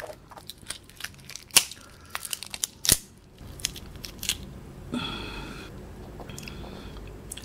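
Shell of a boiled giant freshwater prawn cracking and tearing as it is peeled by hand: a run of sharp cracks and crackles, the loudest about one and a half and three seconds in.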